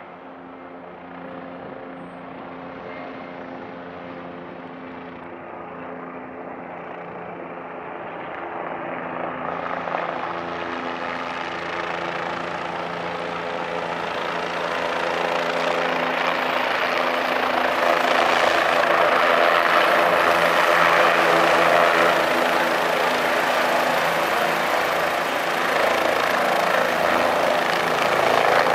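A Bell 407 helicopter, with its four-blade main rotor and Allison 250 turboshaft, approaching and descending to land. The steady rotor and turbine sound grows louder throughout as it comes in close.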